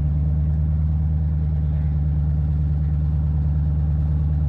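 Off-road wrecker buggy's engine running steadily at low revs with a deep, even throb as it crawls slowly up a flex ramp; the pitch holds constant throughout.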